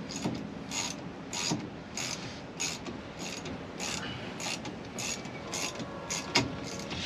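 Turn signal flasher on a 1964 Chevy panel truck clicking steadily, about two clicks a second, as the newly replaced column turn signal switch works again. A louder knock comes about six seconds in.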